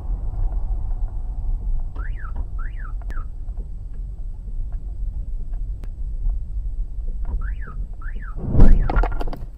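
Low road and engine rumble inside a moving car, heard through a dashcam. Two pairs of short rising-and-falling chirps come about five seconds apart, and near the end there is a loud, sudden thump followed by a few clicks.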